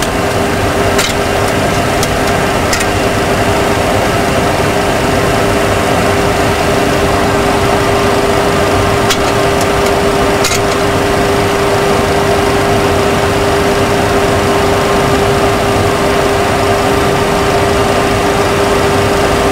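Steady Boeing 737 Classic flight-deck noise during descent: a constant drone with a steady hum, and a few light clicks in the first half.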